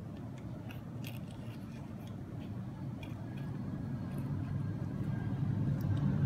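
A few faint light metal clicks as the shift cam of a Sturmey-Archer C30 internal gear hub is handled and slid down the axle, over a steady low hum.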